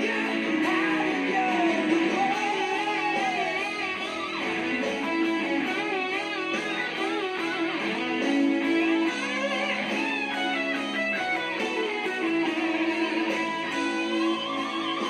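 Ibanez RG560 electric guitar through a Mesa Boogie V-Twin preamp, playing a lead solo with note bends and wide, fast vibrato on sustained notes.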